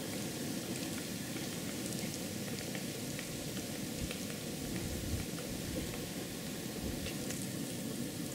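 Quiet winter forest ambience: a steady low rush with a few faint scattered ticks and crackles.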